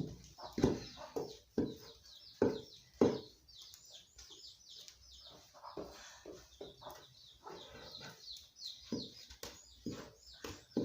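Birds chirping high and continuously, with chickens around, over a series of dull knocks. The knocks are loudest and come about every half second in the first three seconds, then fainter and sparser.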